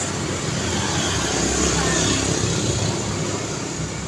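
Road traffic noise: tyres and engines of passing vehicles. One vehicle swells to loudest about two seconds in, then fades.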